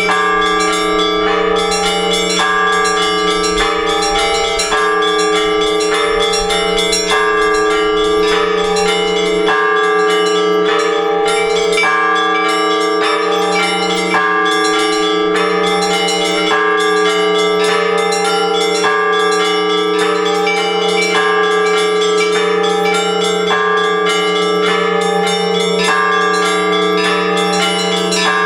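Orthodox church bells rung together in a peal. A deep bell tone hums steadily underneath while several smaller bells strike again and again in a repeating rhythmic pattern.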